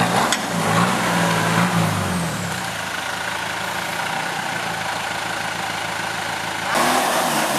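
Off-road 4x4 vehicle's engine running, its pitch moving up and down for the first two seconds or so, then settling into a steady drone. The sound changes abruptly near the end.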